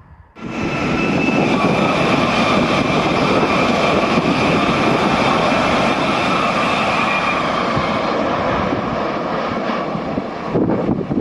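High-speed train passing at speed close by: a loud, steady rush of air and wheel noise with a faint high whine, starting abruptly about half a second in and changing near the end.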